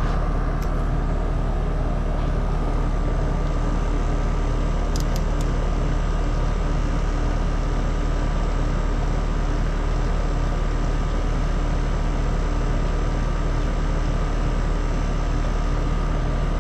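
Steady, unchanging machine hum: a strong low drone with a few constant faint tones above it, and a couple of faint light clicks.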